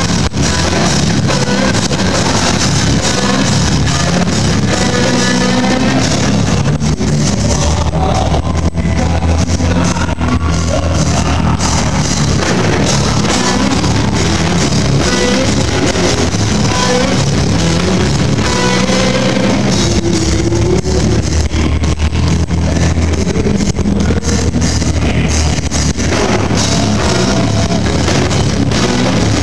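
Live rock band playing loud, with distorted electric guitars, bass and drums going without a break.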